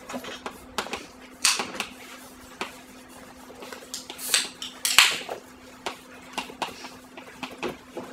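Chalk writing on a blackboard: irregular sharp taps, with three louder scratchy strokes, about one and a half, four and five seconds in.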